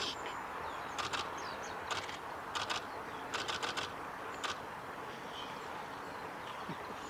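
Japanese white-eyes bathing in shallow water, their wings splashing in short flurries of flicks several times over the first few seconds, then stopping. A few faint, thin high calls come in between the splashes.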